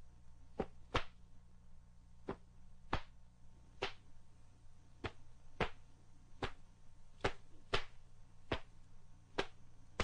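Sharp snaps of a taekwondo uniform (dobok) cracking with each punch, block and strike of a poomsae. About a dozen separate cracks come at uneven intervals, with faint steady hum underneath.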